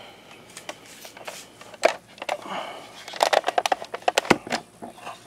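Handling noise: a run of sharp clicks and light rattles, sparse at first and densest in the second half.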